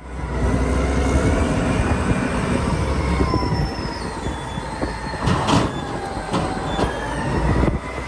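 Caterpillar 992C wheel loader working, its diesel engine running under load with a deep steady rumble and faint metal squeals that slowly rise and fall. A sharp clatter comes about five and a half seconds in, with a few lighter knocks after it, as the bucket tips its load into the dump trailer.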